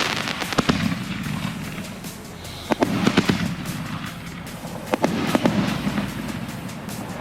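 Consumer aerial fireworks going off: clusters of sharp bangs about a second in, around three seconds and around five seconds, with music playing underneath.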